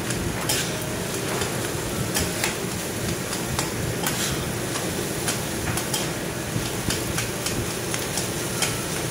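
Two metal spatulas clacking and scraping on a steel teppanyaki griddle as fried rice is chopped and turned, in sharp irregular knocks a few per second over a steady sizzle.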